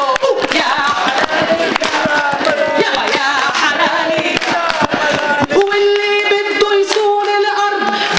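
A woman sings a Palestinian folk song in Arabic into a microphone while a crowd claps along. About five and a half seconds in she holds one long steady note.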